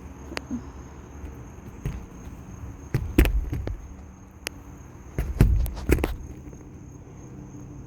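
A handful of irregular knocks and dull thumps, the loudest clustered about three seconds in and again around five to six seconds in, over a faint steady high tone.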